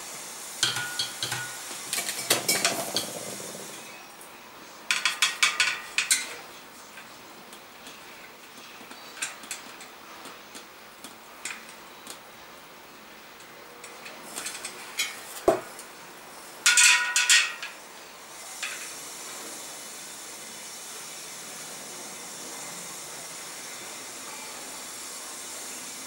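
Metal clinks and rattles as a bicycle wheel is handled and a wheel alignment gauge is set against its rim, in several short clusters, some with a brief metallic ring.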